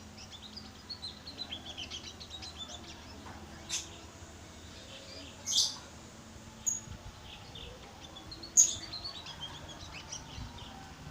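A munia (pipit bondol) singing a soft, rapid twittering song, practising a canary-like song, broken by four louder sharp chirps about midway through.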